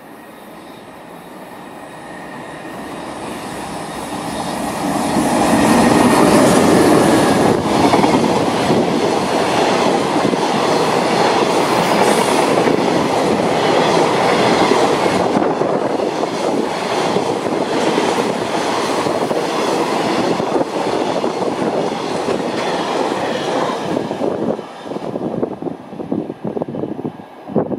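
EH500 electric locomotive hauling a container freight train past at speed. The noise swells over the first five seconds as the train approaches, then settles into the steady rumble and clickety-clack of the container wagons' wheels over the rail joints. It falls away and breaks up in the last few seconds as the end of the train passes.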